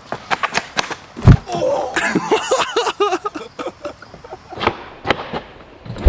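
A run of knocks and clatters with one heavy thump about a second in, then a person's voice calling out in quick rising-and-falling bursts, and a few more knocks and a final heavy thump near the end.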